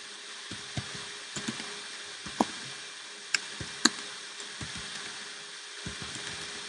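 Typing on a computer keyboard: about a dozen irregular keystroke clicks, a few sharper than the rest, over a steady hiss and faint hum.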